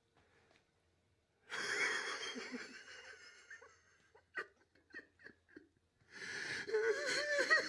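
A man crying. After a short hush comes a long wavering sob, then a series of short gasping sobs, then more wavering wailing near the end.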